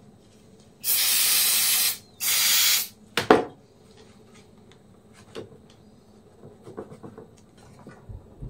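Two bursts of hissing spray from an aerosol can of cleaning spray, each about a second long, followed by a sharp knock and a few faint clicks.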